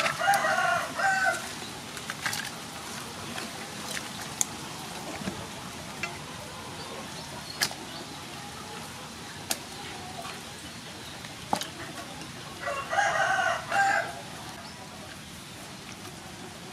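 A rooster crowing twice, once at the very start and again about thirteen seconds in, each crow lasting about a second. A few sharp clicks fall in between.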